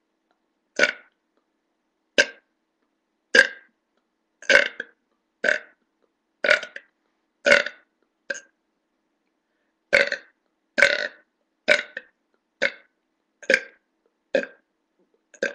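A person belching over and over: about fifteen short burps, roughly one a second, with silence between them.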